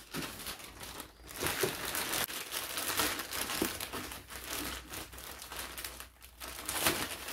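Packaging crinkling and rustling in hands as a courier package is handled and opened, a busy run of small crackles with brief pauses.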